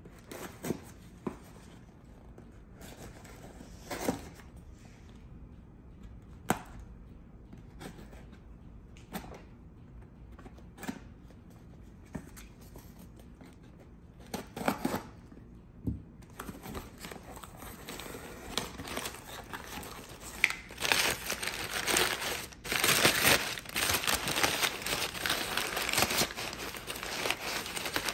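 A knife blade slicing and scraping through packing tape on a cardboard box, heard as a few scattered sharp scrapes and ticks. About two-thirds of the way in, the box is opened and loud, dense crinkling of crumpled brown kraft packing paper takes over.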